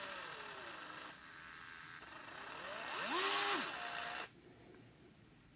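DeWalt DCF682 8V gyroscopic screwdriver's motor and gearbox whining as the tool is twisted: the whine winds down in the first second, then about two and a half seconds in rises in pitch, holds briefly and falls away as the tool returns to neutral and stops.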